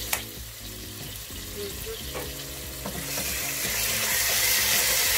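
Chicken breast pieces sizzling in hot oil in a pot, with one sharp click just after the start. From about three seconds in the sizzle grows louder as a wooden spatula stirs the pieces around.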